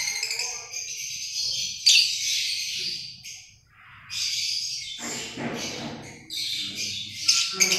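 A flock of caged lovebirds chirping and screeching shrilly in overlapping bursts, with a short lull about halfway through.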